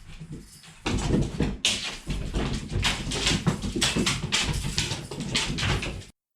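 A cat playing with a teaser toy, heard as irregular rustling, scuffing and light knocks. The sound starts about a second in and cuts off suddenly near the end.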